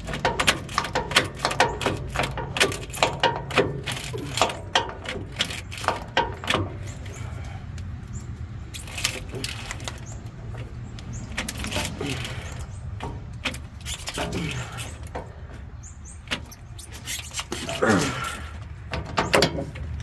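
Socket ratchet clicking rapidly as the loose bolts of a truck's front leaf-spring mount are tightened, slowing to scattered clicks after about seven seconds, over a steady low hum.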